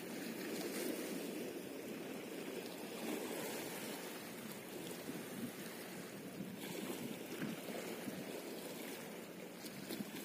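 Small sea waves lapping and splashing against a stone seawall: a steady wash of water.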